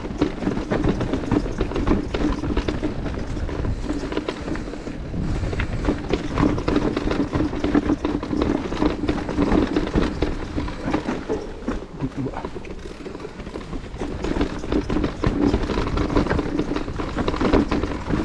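E-mountain bike riding down a trail: wind rushing over the microphone, with tyres on the dirt surface and the bike rattling over bumps in constant, uneven noise.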